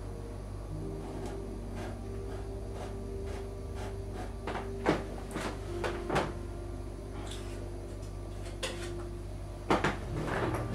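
A few sharp knocks and clicks of objects being handled, the loudest about five and six seconds in and two close together near the end, over a steady low hum.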